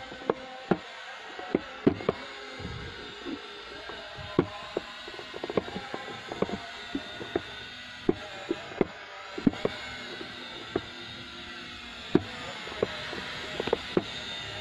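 Small E88 4K quadcopter drone flying, its propellers giving a steady whine of several tones whose pitch shifts a little as it manoeuvres. Irregular sharp clicks sound throughout and are louder than the whine.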